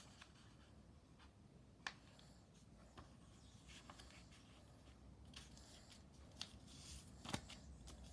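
Faint handling of a sheet of paper being folded in half and creased: quiet rustling with a few short crackles, the sharpest about two seconds in and another near the end.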